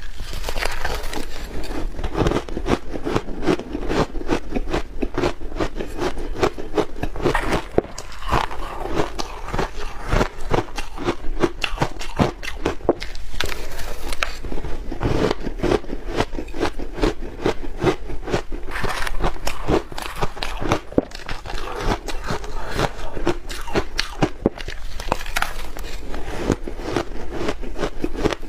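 Crunchy red ice being bitten and chewed close to the microphone: a dense, continuous stream of sharp crunching and crackling.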